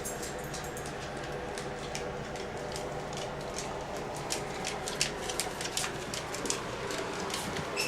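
Light, irregular clicks and ticks from a dog moving about, getting busier and louder about halfway through, over a steady room hum.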